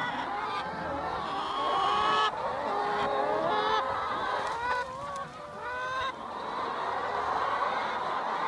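A flock of free-range laying hens clucking and calling, many voices overlapping without a break.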